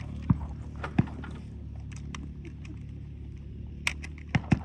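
A handful of short, sharp clicks and knocks (one near the start, one about a second in, three close together near the end) over a steady low rumble.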